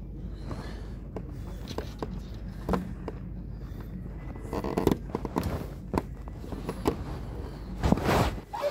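Handling noise: cloth rubbing and scuffing over the phone's microphone, with scattered sharp clicks and scrapes, and louder scuffing bursts about five seconds in and again near the end.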